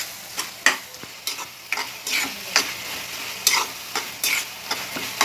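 A spatula stirring and scraping a thick tomato-onion masala around a coated kadai, in irregular strokes roughly twice a second, over a faint sizzle of frying.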